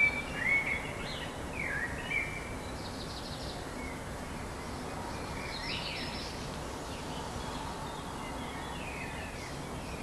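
Songbirds singing at dawn: whistled phrases, densest in the first two seconds, then scattered calls over a steady background noise.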